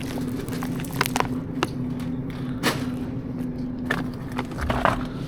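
Steady low hum of supermarket machinery, with scattered clicks and rustles of a frozen-food package being handled.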